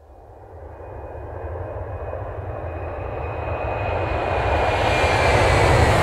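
Airplane engine noise swelling steadily louder: a rushing roar over a low rumble, with a faint high whine on top.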